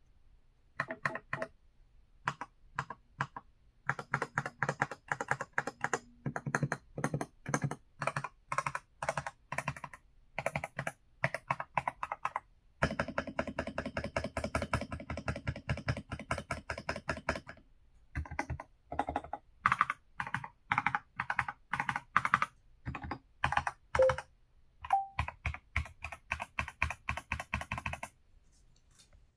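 EPOMAKER Shadow-X mechanical keyboard being typed on: runs of key clicks with short pauses between them and a fast, dense burst of typing midway. The typing stops shortly before the end.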